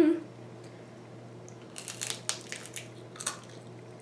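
A person chewing crunchy food close to the microphone: after a quiet start, a quick run of crisp crunches begins about two seconds in and lasts over a second.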